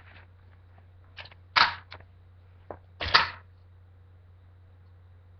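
A kick scooter knocking and scraping on a concrete garage floor: a few short clatters, the two loudest about a second and a half apart.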